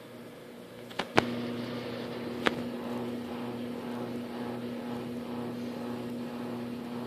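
Microwave oven running with a steady electrical hum, which gets louder after two sharp clicks about a second in; another click comes a little later.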